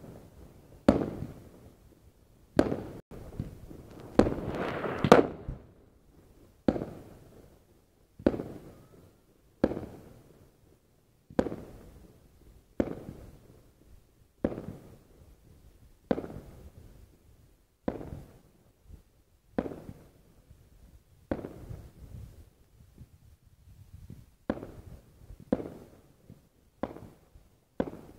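Fireworks bursting in the air, a sharp bang about every one and a half seconds, each trailing off in echo, with a denser run of bangs about four seconds in.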